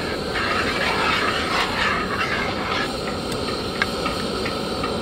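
Curry sauce bubbling in a pot on the stove: a steady hiss with a few short pops.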